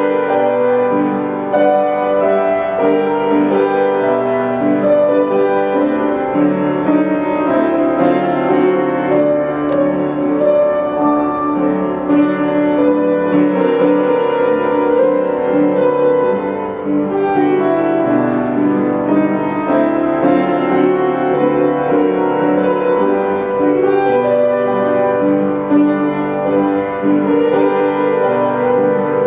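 Classical piano music playing without a break, the accompaniment to a ballet exercise.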